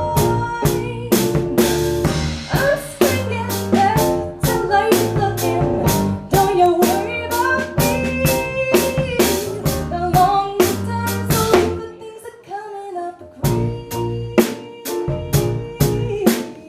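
Live music: an instrumental passage with a steady percussive beat of sharp hits, about three a second, over held pitched notes. It thins out briefly about three quarters of the way through.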